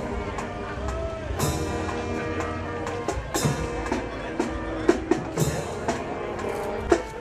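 A school marching band playing while it parades: brass holding sustained notes over a beat of snare and bass drums, with sharp crashes every second or so.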